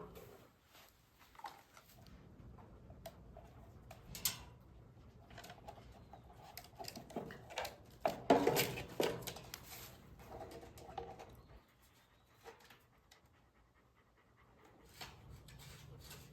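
A dog panting, with a couple of short whines.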